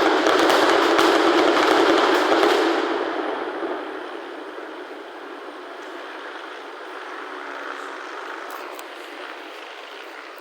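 Fireworks finale: many bursts going off together in a dense, loud rush for about the first three seconds, then fading into a softer, steady noise.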